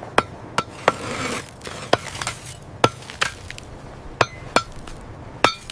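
A metal tool striking frozen ice, about nine sharp blows at uneven intervals, each with a brief metallic ring. The blows are meant to break loose something frozen fast in the ice.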